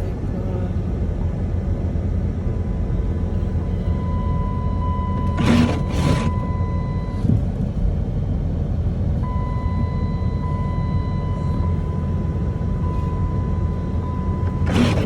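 Car cabin noise while driving: a steady low rumble from the engine and road. A quick pair of swishes comes about five seconds in and another near the end, and a thin steady high tone sounds twice for a few seconds.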